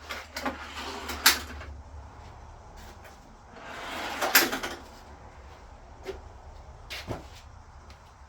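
Wood and metal being handled on a folding cart wing: two short scraping swings, each ending in a sharp clack, about a second in and about four seconds in, then a few lighter knocks near the end, over a steady low hum.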